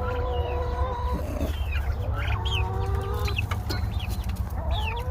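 Backyard chickens calling: several long, drawn-out calls about a second each, mixed with short higher chirps, over a steady low hum.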